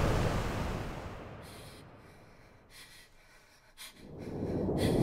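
A low rumble fades away over the first two seconds into near silence, broken by a few faint breaths. About four seconds in, the rush of sea surf swells back up.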